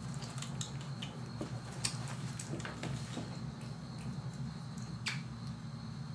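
Scattered light clicks and clinks of corgi puppies feeding from a stainless steel bowl of kibble, over a steady low hum.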